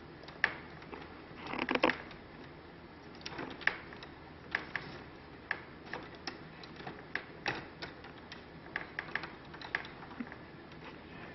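Irregular sharp clicks and taps of plantation shutter parts being fitted by hand, as the repair-kit pieces and louvers are lined up and worked into place, with a short flurry of clicks about two seconds in.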